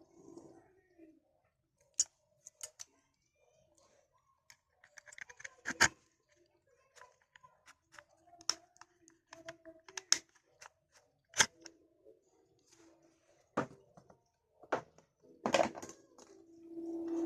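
Irregular clicks, taps and knocks of small hard parts being handled and worked by hand, with two louder knocks about six seconds in and near the end.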